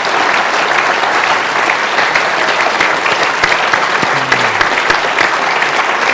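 An audience applauding, many hands clapping at once in a steady, dense patter.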